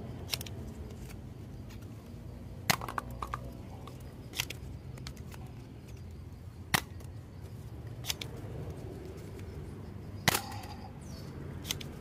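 Sharp plastic clicks from a toy foam-dart blaster being handled: about seven separate snaps, irregularly spaced, over a quiet background.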